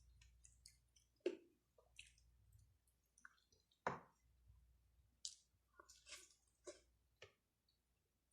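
Close, quiet eating sounds: soft chewing with scattered small clicks and wet smacks, two of them louder, about a second in and about four seconds in.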